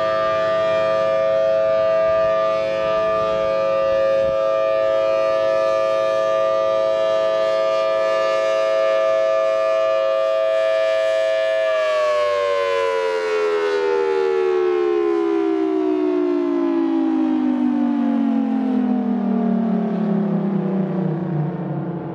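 Federal Signal Thunderbolt 1000ATSC rotating outdoor warning siren sounding a steady tone made of several pitches at once, then winding down from about twelve seconds in, its pitch falling steadily as it slows.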